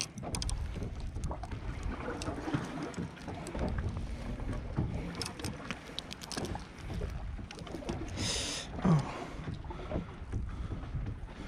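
Wind rumbling on the microphone and water slapping against a small boat's hull at sea, with scattered small clicks and one short, louder rush of noise about eight seconds in.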